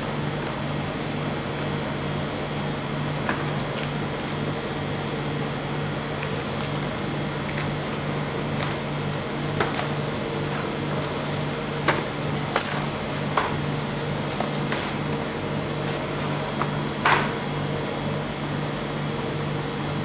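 Clear plastic film crinkling and a cardboard candy-cane box being opened by hand, with scattered sharp crackles, the loudest about two-thirds of the way through. Under it runs a steady low hum from the ice-cream roll machine's freezing plate.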